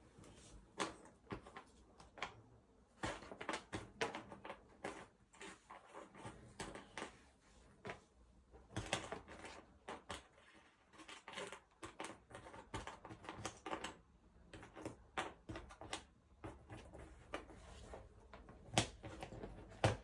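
Jigsaw puzzle pieces being picked up, shuffled and set down: irregular light clicks and taps, some in quick clusters.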